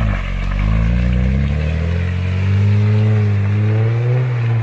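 A 4WD's engine revving hard under load as it is sent at an off-road climb. Its pitch dips about a second in, then climbs steadily, and the sound cuts off suddenly near the end.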